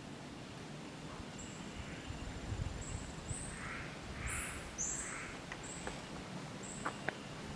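Forest birds calling: three harsh, raspy calls in quick succession about midway, over short, thin, very high notes repeated every second or so. A few sharp clicks near the end.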